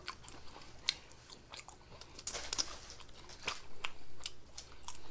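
Close-miked chewing of a sloppy joe and potato chips: wet mouth clicks with a few crunches, the loudest about two and a half and three and a half seconds in.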